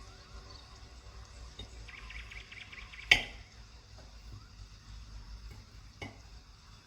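A utensil scraping briefly, then a sharp clink against a dish about three seconds in, and a lighter clink near the end.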